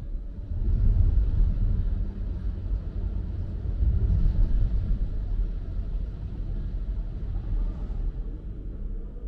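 Low, steady vehicle rumble as a car pulls out of a mechanical parking garage's exit bay, starting suddenly and swelling within the first second.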